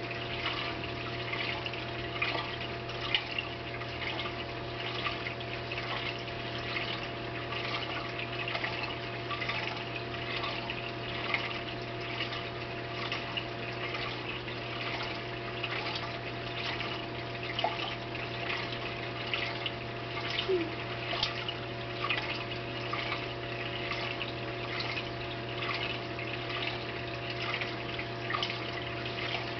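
Oceanic BioCube 29 saltwater aquarium running: water trickling and splashing steadily, with many small drip-like ticks, over a constant low hum from its pumps.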